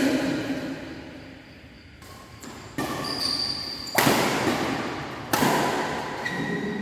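Badminton rally: four sharp racket hits on a shuttlecock, about a second or so apart, echoing in the hall, with brief squeaks of shoes on the court floor in between.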